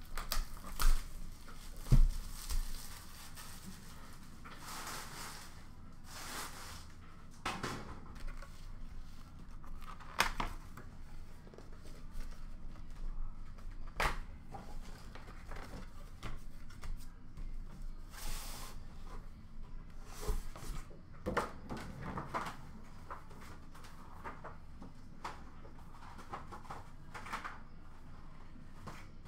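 Hockey card box being opened by hand: a cardboard outer box is folded open and a wooden inner box is taken out and set down. Cardboard rustles and scrapes, with scattered knocks and clicks; the loudest are two low thumps about one and two seconds in.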